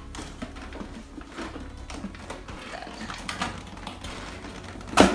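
Plastic sleeve around a potted plant crinkling and rustling as the plant is handled and lifted out of a cardboard box, with a single sharp knock about five seconds in.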